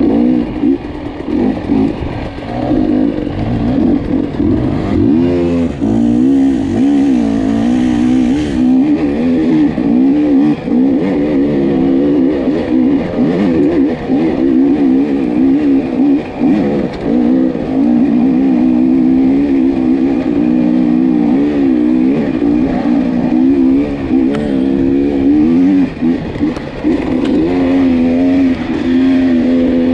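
Dirt bike engine running under constantly changing throttle, its pitch rising and falling again and again as it is ridden.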